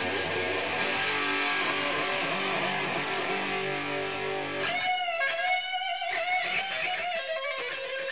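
Intro music led by electric guitar. About five seconds in, the bass drops out and a higher wavering guitar line takes over.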